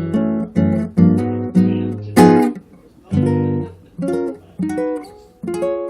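Acoustic guitar played by hand: a run of sharply struck chords, about two a second, then after a short break lighter, more spaced chords and single notes that are left to ring.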